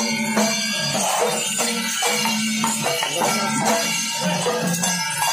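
Music with jingling percussion over a sustained low drone.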